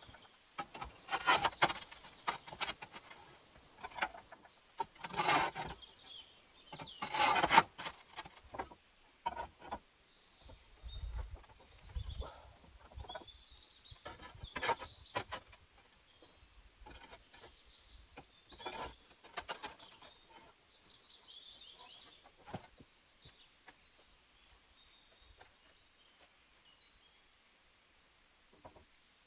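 Irregular scrapes and knocks of handwork with wood, with three longer rasping strokes in the first eight seconds, and small birds chirping in the background later on.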